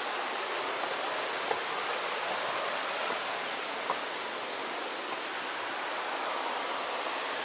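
Steady rushing of flowing water, like a stream in the gorge below the trail, with two faint ticks, most likely footsteps on the path.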